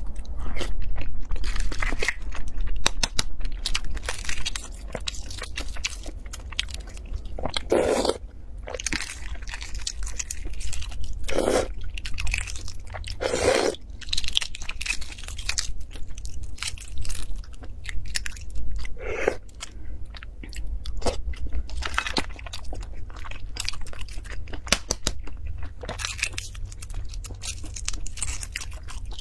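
Shells of hard-boiled eggs crackling and crunching as they are cracked and peeled by hand: a dense run of small clicks, with a few louder crunches now and then.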